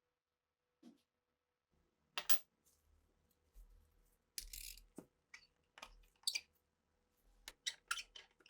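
Small metal parts of an old Sauer pistol clicking and clinking as they are handled and worked, about a dozen sharp clicks spread irregularly, with a short scraping sound about four and a half seconds in.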